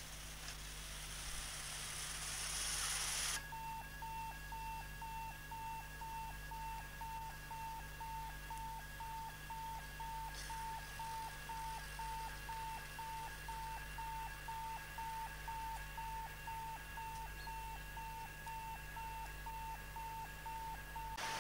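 A rising hiss for about three seconds cuts off suddenly. It is followed by a steady electronic beeping, a single high tone pulsed about two to three times a second, over a low hum.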